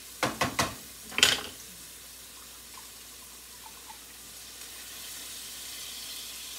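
A few sharp clacks against the pan in the first second or so, the loudest about a second in. Then a hiss that builds from about halfway through as a brown liquid is poured from a glass measuring cup into the hot skillet.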